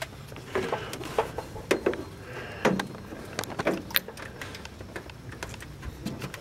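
Scattered clicks and knocks of a mains power cord being handled and its plug pushed into the power socket on the back of a CRT monitor's plastic case.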